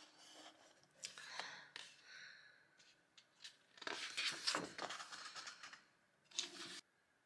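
Soft paper rustling as the cover and pages of a paperback book are opened and turned by hand, in a few separate handlings, the loudest about four seconds in, with the person's breathing audible.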